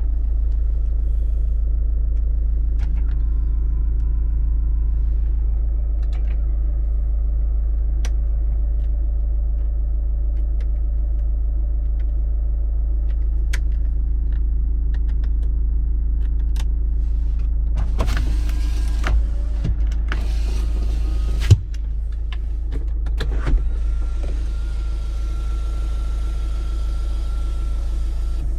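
GM Daewoo Winstorm SUV engine idling steadily. Around eighteen seconds in there are a few seconds of louder noise, then a single sharp knock.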